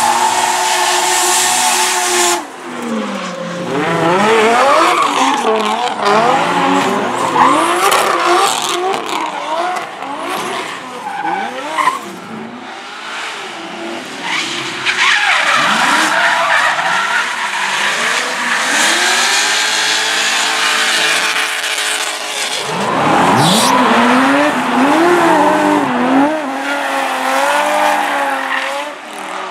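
Drift cars' engines revving hard, pitch climbing and dropping again and again as the drivers work the throttle, with tyres squealing as the cars slide. The sound shifts abruptly a few times, about two seconds in, near the middle and about three-quarters of the way through.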